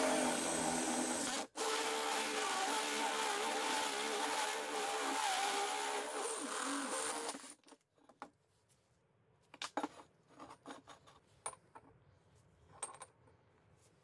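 A drill-driven hole saw cutting through the thin steel shell of a refrigerator compressor: a steady, grinding screech that stops briefly about a second and a half in, resumes, and ends at about seven and a half seconds. It is followed by scattered light clicks and knocks from the metal parts being handled.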